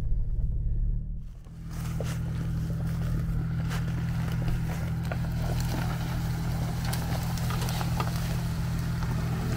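A Jeep's engine running at a steady speed with a dense crackling noise over it; the sound dips briefly about a second in, then the steady running resumes.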